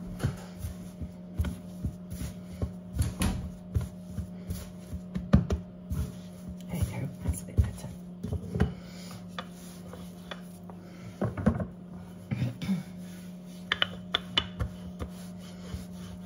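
Hands kneading and patting soft biscuit dough on a floured wooden worktop: irregular soft thumps and rubbing. A steady low hum sits underneath throughout.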